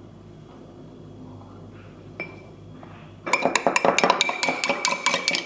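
A metal spoon stirring a drink in a drinking glass, clinking rapidly against the glass. It starts about three seconds in, after a quiet stretch with a single light tap.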